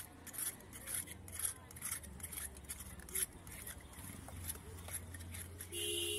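A knife blade scraping the scales off a large catla fish in repeated rasping strokes, about two a second at first, then less regular. Near the end a brief steady tone cuts in over it.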